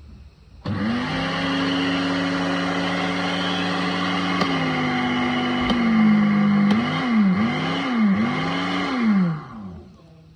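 Electric ice-crushing blender motor switching on abruptly and running at a steady high whine. About five seconds in its pitch drops, then dips and recovers three times before it winds down and stops near the end.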